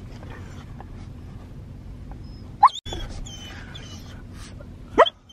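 Dog whining twice, each a short cry rising in pitch, about two seconds apart, over the low steady hum of a car cabin: the dog is anxious and starting to freak out.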